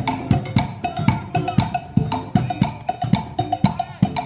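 Live percussion band playing a quick, steady beat on drum kit, cymbals and hand drums, with a short riff of pitched notes repeating over it.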